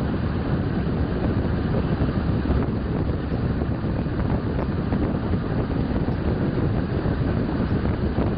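Steady rumble of a regional passenger train running at speed, heard from inside the carriage by the window, with wind noise over it.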